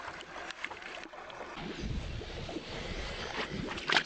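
Water sloshing in the shallows beside a boat hull, with wind rumbling on the microphone from about halfway through, and a brief splash near the end as a bare foot goes into the water.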